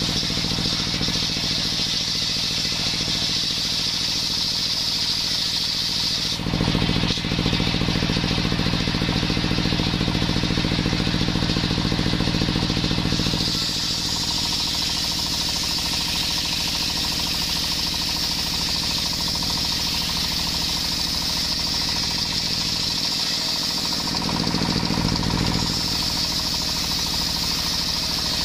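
Large circular table saw, belt-driven by a stationary engine, ripping a coconut-wood beam: the engine runs steadily throughout under a high hiss of the blade cutting. About a quarter of the way in the cutting hiss stops for several seconds while the engine and the free-spinning blade run on, then it comes back as the cut resumes.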